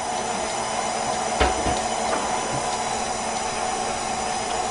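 Stand mixer running steadily, its motor whirring as it beats a cream cheese and butter filling, with one knock about a second and a half in.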